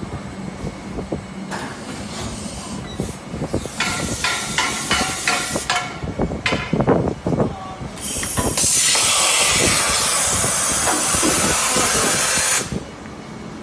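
Injection moulding machine opening a 20-litre pail mould, with clunks, knocks and hissing. Then a loud, steady hiss of compressed air runs for about four and a half seconds and cuts off suddenly: the air blow-off that releases the moulded pail from the core.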